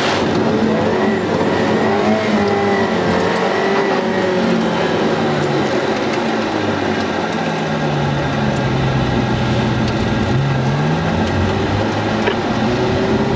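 Ferrari engine heard from inside the cabin, running steadily while its pitch rises and falls with the throttle, dipping lower about two-thirds of the way in before climbing again.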